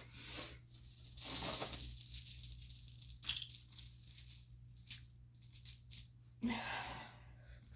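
Small plastic fidget toys being handled: a rustling, rattling burst about a second in, then a scattering of sharp little clicks.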